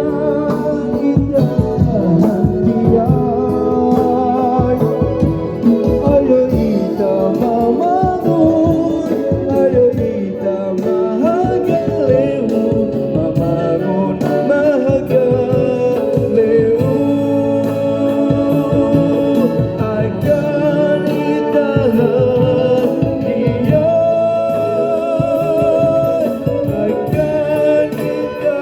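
Song: a voice singing a melody with held, wavering notes over steady instrumental accompaniment.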